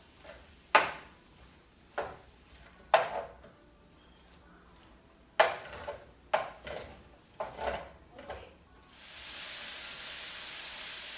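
A series of sharp knocks and clinks of a utensil against a pot or pan, then from about nine seconds in a steady sizzle of food frying in a hot pan.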